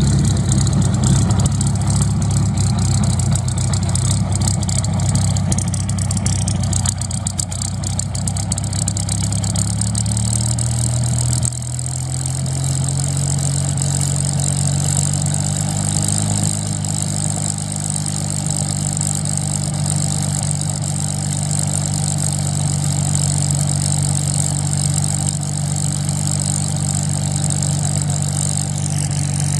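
Spitfire's Rolls-Royce Merlin V12 engine running at low power as the aircraft taxis, with the propeller turning. The note drops slightly and settles after about eleven seconds, then holds steady.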